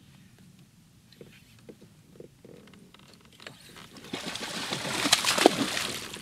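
A few faint clicks, then from about four seconds in a hooked bass thrashing and splashing at the water's surface right beside the kayak, loudest just past the five-second mark.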